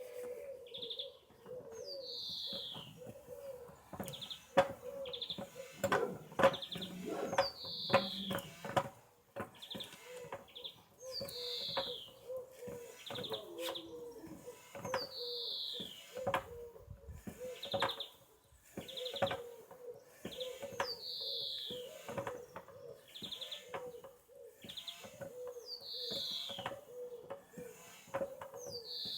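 Dunlop trolley compressor foot pump worked in repeated strokes to inflate a flat car tyre, with irregular knocks from the pump. A bird repeats a falling chirp every few seconds.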